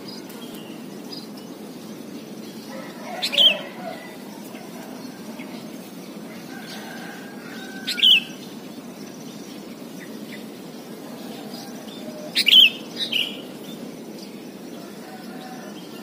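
Sooty-headed bulbul (kutilang) calling: three short loud calls a few seconds apart, the last one a quick double, over a steady low background noise.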